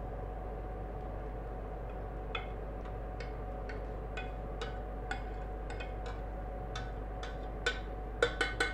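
A spoon scraping and clicking against the inside of a stainless steel pot as thick cream mushroom sauce is scooped out onto a plate: light clicks about twice a second, with a few quicker, louder ones near the end. A faint steady hum runs underneath.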